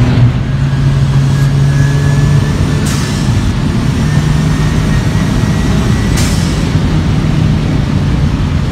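Classic Mini Pickup's turbocharged 1275 A-series (Metro Turbo) engine running hard on the road, heard from inside the small cabin as a loud steady low drone over road noise. The drone eases off briefly about two to four seconds in, a faint high whistle rises slowly through the middle, and there are two short faint clicks.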